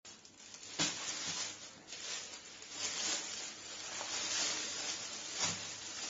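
Thin plastic carry bag crinkling and rustling as ears of sweet corn in their husks are handled and pulled out of it, with a sharper knock about a second in and another near the end.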